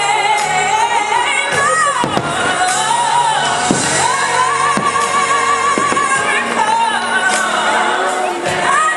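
Show music over loudspeakers: a singer holding long, wavering notes over an accompaniment. A few firework bangs come through underneath.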